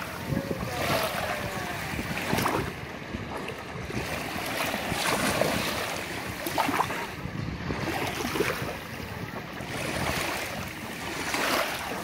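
Gentle Black Sea waves lapping in shallow water over a sandy shore, a steady wash that swells and ebbs every few seconds.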